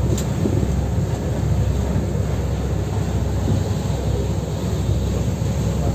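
A steady low rumble, heavy in the bass, with a faint hiss above it.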